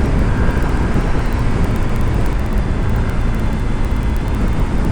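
Motorcycle riding at speed on the open road: steady wind and engine noise, heaviest in the low end.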